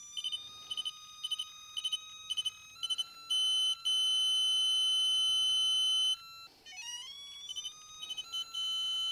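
A Wheeler digital torque screwdriver's alert beeping as it is turned to its 15 in-lb setting. Short high beeps come about twice a second, then a long steady beep of about three seconds, then a few more beeps and another steady tone near the end.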